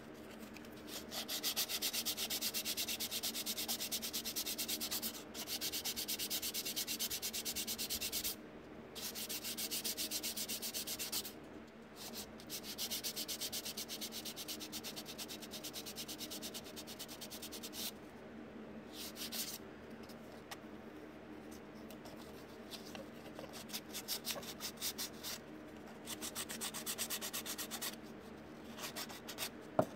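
Sandpaper on a sanding block rubbed back and forth in fast strokes over body filler on a plastic model-car fender, blending the filled seam smooth. The sanding comes in long runs broken by short pauses, and turns lighter and more intermittent after the middle, over a faint steady hum.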